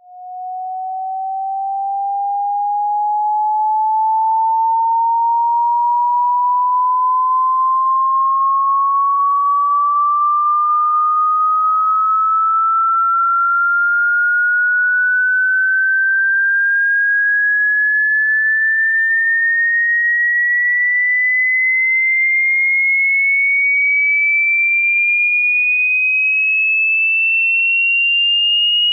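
A single pure electronic tone, played as a dog whistle sound to stop barking, rising slowly and steadily in pitch from a mid to a high whistle. It fades in over the first few seconds, then holds a steady level.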